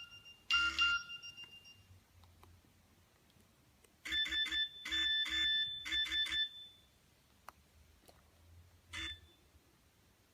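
Nokia 6070 mobile phone playing ringtone melodies through its small speaker. A short phrase comes just after the start, a quick run of notes about four seconds in, and a single note near the end.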